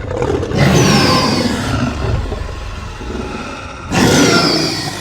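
Dinosaur roar sound effect in the style of a T. rex: a long, loud roar swelling up about half a second in and trailing off over the next few seconds, then a second loud roar near the end.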